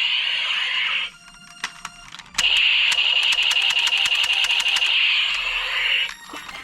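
Toy gun's rapid electronic firing rattle in two bursts: the first cuts off about a second in, and the second starts over a second later and runs about four seconds before stopping sharply.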